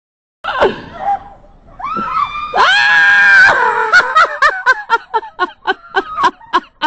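Short cries, then a high-pitched shriek lasting about a second, followed by a run of quick laughter, about four bursts a second.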